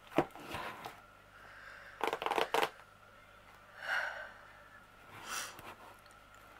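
Shrink-wrapped cardboard box being handled and turned over on a table: a sharp tap just after the start, then several short bursts of crinkling and rustling from the plastic wrap and card, the loudest about two seconds in.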